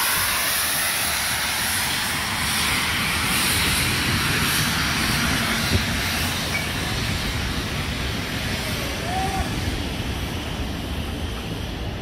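Steam-hauled train passing close at walking-to-running pace. The locomotive's steam hiss fades over the first few seconds while the wagons and carriages roll by on the rails with a steady rumble and clatter of wheels.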